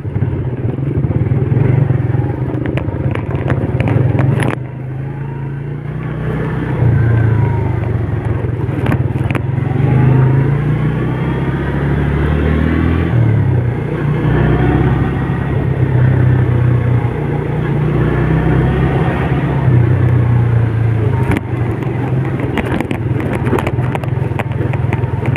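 Road traffic: motorcycle and car engines running, with a steady low engine drone that swells and eases.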